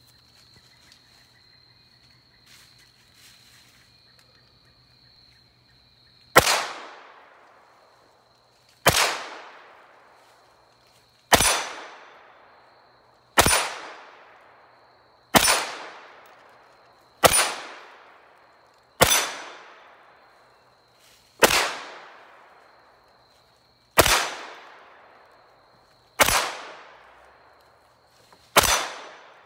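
CZ Scorpion EVO 3 9mm carbine firing single, deliberately paced shots: eleven in all, starting about six seconds in, roughly one every two seconds, each crack trailing off in a short echo.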